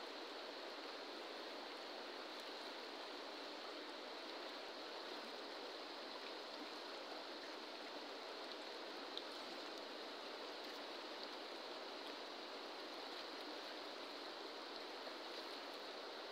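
Steady rush of a fast-flowing river, with one faint tick about nine seconds in.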